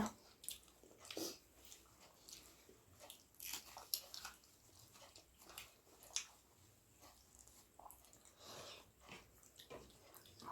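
Faint, irregular chewing and mouth smacks of a person eating a meal, with soft short crunches here and there.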